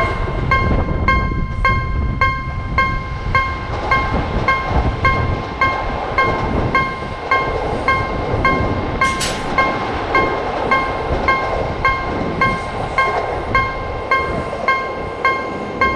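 Japanese railroad crossing warning bell ringing its steady "kan-kan", about 1.7 strikes a second, over the low rumble of a passing train. A brief hiss cuts in about nine seconds in.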